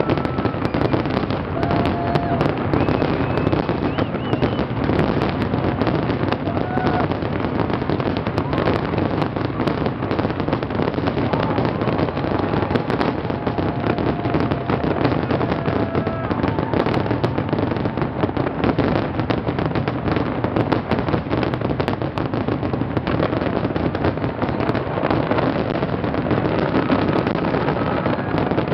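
Fireworks finale: a dense, continuous barrage of rapid bangs and crackling with no let-up, with a few short whistling tones here and there.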